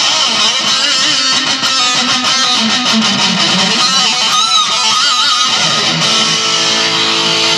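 Heavily distorted electric guitar through a Boss Metal Zone pedal into a Marshall MG15 DFX amp, playing a lead lick with bent notes and wide vibrato. From about six seconds in, a chord is held and left ringing with long sustain.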